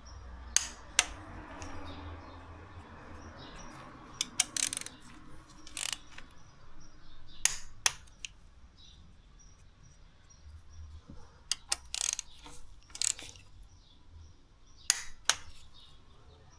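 Hand tools and metal parts clicking and clinking during mechanical work, a dozen or so scattered sharp clicks, over a soft rushing noise in the first few seconds.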